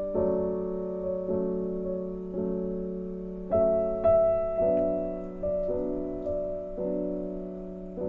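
Slow, gentle solo piano music: chords struck about once a second, each ringing and fading before the next.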